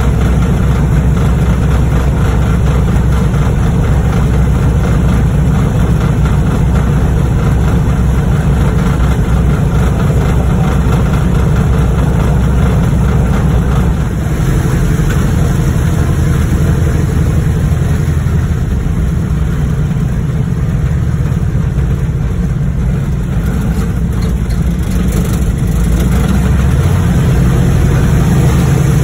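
Propeller airplane's piston engine running at taxi power, heard from inside the cabin: a steady low drone that dips briefly about halfway through and grows a little louder near the end.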